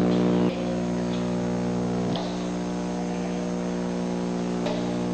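A steady low buzzing hum with many overtones. It changes abruptly about half a second in and again about two seconds in, with faint brief chirps above it.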